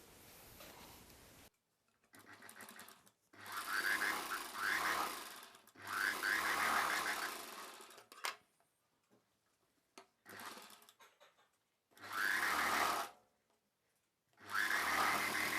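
Sewing machine stitching through fabric in four short runs of about one to two and a half seconds each. Between the runs there are pauses with a few small clicks.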